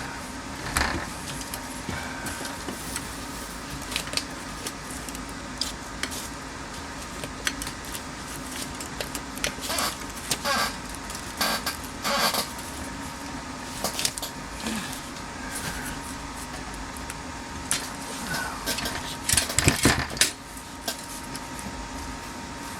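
Scattered light metallic clicks and rattles as a turn signal switch and its wiring harness are worked down through a GM tilt/telescopic steering column, with a cluster of louder clattering about twenty seconds in. A faint steady hum lies underneath.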